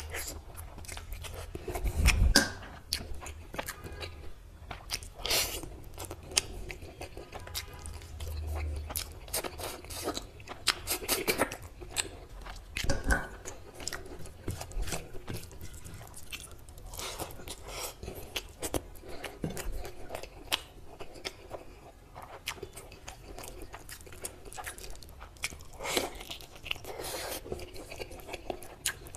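Close-miked eating: a person biting and chewing mutton curry, rice and fried brinjal, with irregular wet mouth smacks and crunchy bites. There are louder bites about two seconds in, around twelve to thirteen seconds, and near the end.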